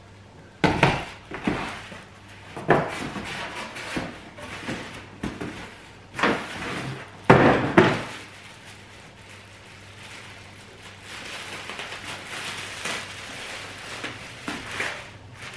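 Unboxing handling noise: a cardboard box and a plastic-wrapped stainless-steel thermal cooker pot knocking and thudding as the pot is pulled out and set down on a stone counter, several sharp knocks in the first eight seconds with the loudest near the end of them. Then quieter, steady rustling of the plastic wrap being worked loose.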